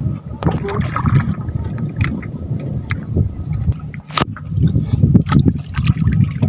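Water sloshing and gurgling around a small fishing boat, with scattered sharp knocks and clicks on the boat.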